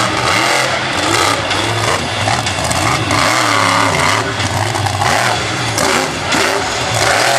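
Monster truck engine revving hard, its pitch rising and falling again and again as the truck drives over crushed cars on a dirt track.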